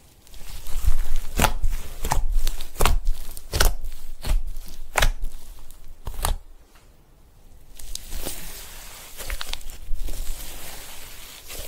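Thick, fluffy slime being stretched, pressed and squeezed by hands, making sharp pops and crackles roughly every second. There is a brief quiet pause a little past halfway, then softer crackling.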